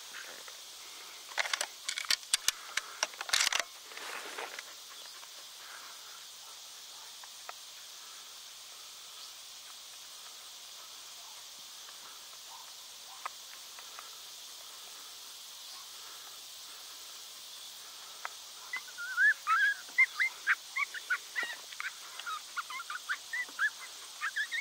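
A rifle bolt being pulled and worked after a blown primer: a few seconds of sharp metallic clicks and rattles near the start. A steady high insect hum runs underneath. About nineteen seconds in, an animal starts a run of short, rapid, high yips that go on to the end.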